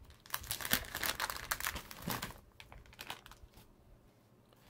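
A thin plastic packet crinkling as it is pulled open by hand and emptied of small metal SMA coax connectors. The crackling is densest over the first two seconds, then thins out to a few scattered rustles.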